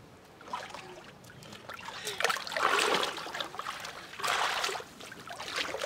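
Pool water splashing and sloshing as a small child in armbands swims, in two bouts: one starting about two seconds in, and a shorter one about four seconds in.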